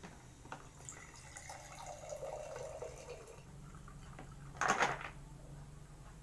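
A drink being poured from a plastic pitcher into a glass, a steady pour lasting a couple of seconds. A short, louder noise comes nearly five seconds in and is the loudest moment.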